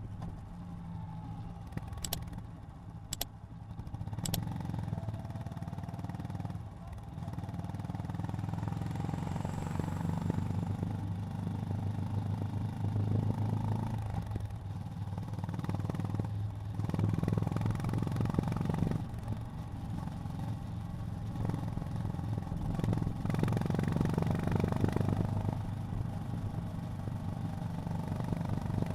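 Honda GB350's air-cooled single-cylinder engine running under way, its note rising and falling, dropping away briefly several times. Three sharp clicks a second or so apart come a couple of seconds in.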